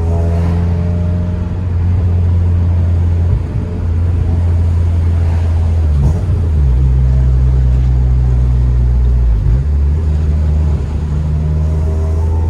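Ninth-generation Honda Civic Si's 2.4-litre four-cylinder engine and exhaust droning steadily while driving. The drone changes pitch about six seconds in and goes back about three and a half seconds later.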